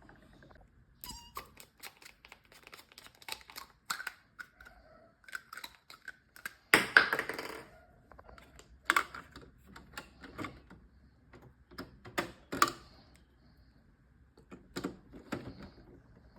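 Packaging and parts being handled while a printer is unboxed: irregular clicks, taps and knocks, with one louder, longer noise lasting about a second around seven seconds in.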